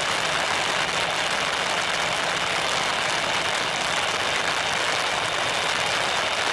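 An Airbus A320's jet engines at taxi idle, a steady, even rushing noise with no change in pitch, mixed with heavy rain.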